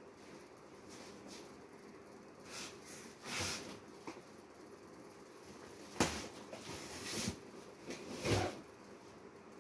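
A few brief rustles and scrapes, with a sharp click about six seconds in, over a faint steady hum of room noise.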